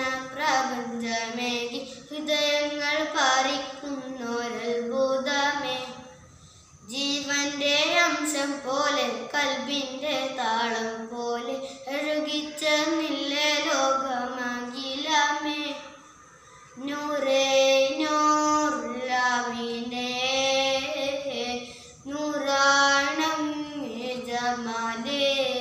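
A boy singing a madh (Islamic praise song) solo and unaccompanied, in long held phrases with short pauses for breath about a third and two thirds of the way through.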